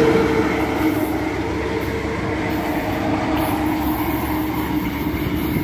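GO Transit MP54AC diesel locomotive, with its twin Cummins engines, running under power as it pulls a departing commuter train past and away. The steady engine drone with its humming tones is loudest at the start and eases a little within the first second, then holds steady.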